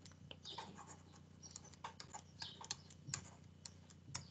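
Faint, irregular taps and scratches of a stylus writing on a tablet.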